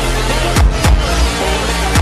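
Slowed, reverb-drenched phonk track: heavy bass with sharp drum hits whose bass drops away in falling sweeps, two close together a little over half a second in and one at the end, over a looping melody.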